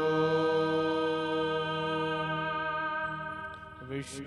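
A singer holds one long, steady chanted note of a Sanskrit Vedic wedding chant, amplified through a PA. The note breaks off shortly before the end, followed by a brief hiss.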